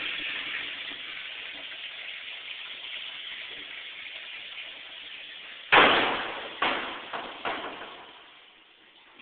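Old toilet flushing: a steady rush of water, then a loud bang about six seconds in and three smaller knocks that fade away.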